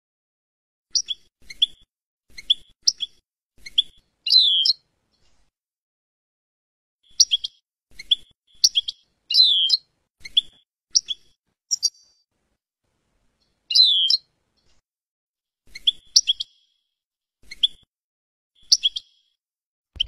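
European goldfinch calling: short, high chirps in loose runs with pauses between them, and now and then a longer note that slurs downward.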